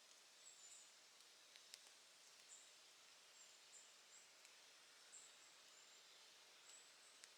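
Quiet campfire crackling: a few sparse, sharp pops over a soft hiss, with short, high, thin chirps repeating every second or so.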